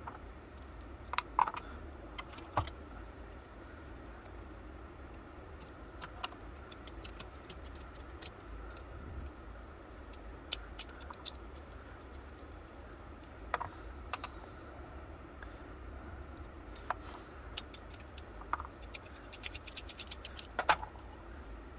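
Small metal clicks and clinks from reassembling an antique percussion pistol by hand: screws, lock parts and a screwdriver tapping against the metal frame, scattered every second or two, with a quick run of clicks near the end.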